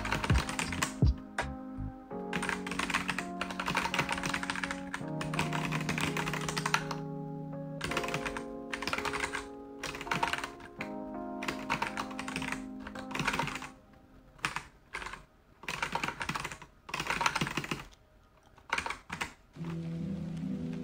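Bursts of typing on a computer keyboard, quick runs of keystrokes with short pauses between, over lofi background music. The music drops out for a few seconds after the middle, leaving only scattered key clicks, then comes back near the end.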